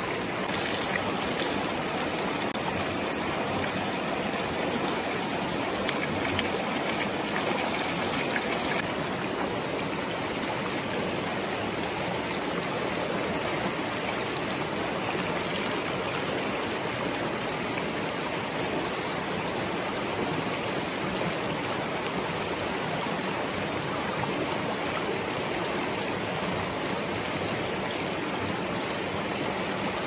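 Shallow stream rushing steadily over stones. For the first nine seconds or so a higher hiss with faint clicks sits on top of it, then cuts off abruptly.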